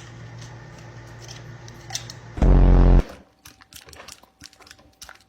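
A pet crunching and chewing a treat, with crackling, clicky bites. About two and a half seconds in there is one loud, short sound held at a steady pitch.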